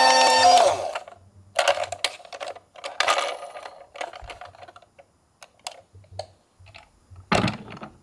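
A toy ambulance's two-tone electronic siren winding down with a falling pitch and stopping under a second in, followed by scattered light clicks and knocks of the plastic toy being handled and turned over, with a louder knock near the end.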